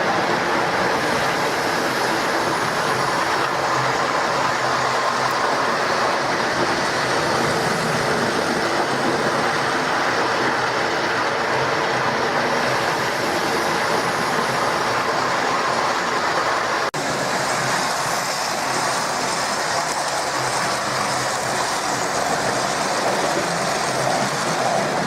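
Hornby OO gauge model steam locomotives running on the layout's track: steady running noise of the small electric motor and wheels on the rails, broken for an instant about two thirds of the way through.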